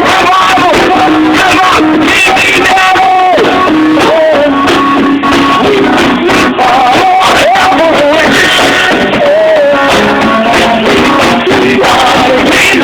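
Music: a man singing a melody over instrumental accompaniment.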